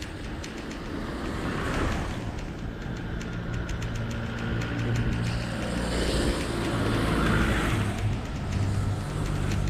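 Motor vehicle engines running on the road close by: a steady low hum, with traffic noise swelling as vehicles pass about two seconds in and again in the second half.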